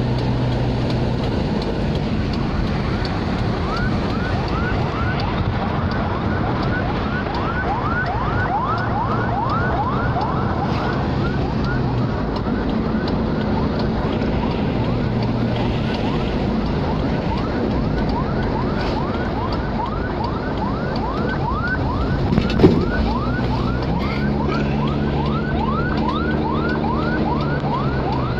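Fast yelping siren, a falling whoop repeated about three times a second, over road and engine noise inside a moving car. This is the warning siren of a funeral convoy escorting a hearse. A low steady drone comes and goes, and one sharp knock sounds about two-thirds of the way through.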